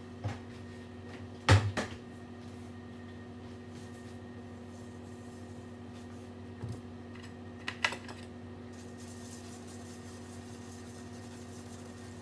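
A few sharp knocks and clicks of kitchen containers being handled and set down on the counter, loudest in a quick cluster about a second and a half in and again around eight seconds. Under them runs a steady electrical hum.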